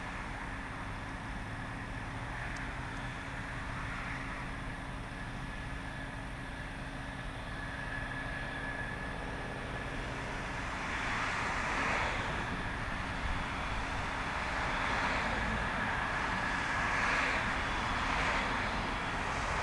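F-16C fighter jet's turbofan at taxi power: a steady high whine over a rumbling hiss, which grows louder and swells in the second half as the jet turns toward the listener.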